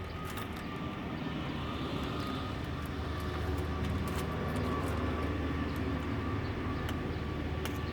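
A steady engine drone that swells a little through the middle and eases toward the end, with a few sharp clicks over it.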